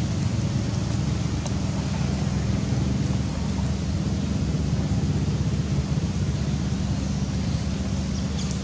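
Steady low rumble with a faint hum over it, a constant background noise with no distinct animal calls.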